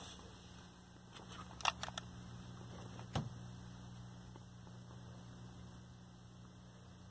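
Faint, steady low electrical hum, with a few light clicks and handling knocks, the clearest about three seconds in.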